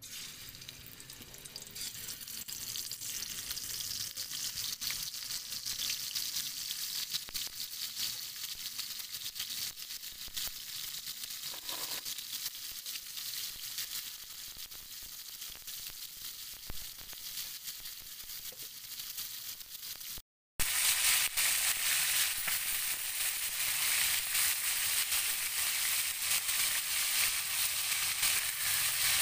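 Food sizzling in hot oil in a pan, a steady frying hiss; it breaks off briefly about twenty seconds in and comes back louder.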